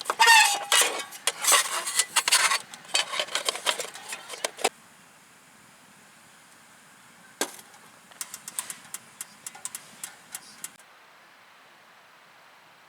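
Rattling and clinking of small hard objects being handled, a dense clatter for about four and a half seconds, then one sharp knock and a second, lighter run of clicks.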